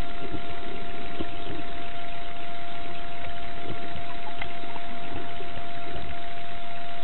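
A motor running steadily, with a constant thin whine over it.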